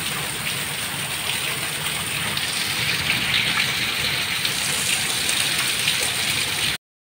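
Torrential rain falling on a paved courtyard: a steady hiss of rain with fine drop patter, a little louder from about halfway. It cuts off suddenly near the end.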